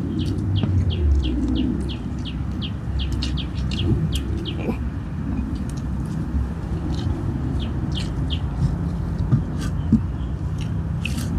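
Small birds chirping: a quick run of short high chirps, about three or four a second, that thins to scattered chirps after about three seconds. Underneath is a steady low rumble.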